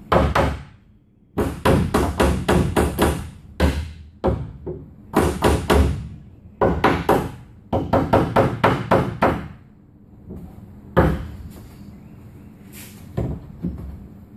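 Runs of quick wooden knocks and clunks, several a second with short pauses between the runs, as the plywood centerboard trunk and its clamp and beam are worked into line in the wooden hull. A single louder knock comes near the end.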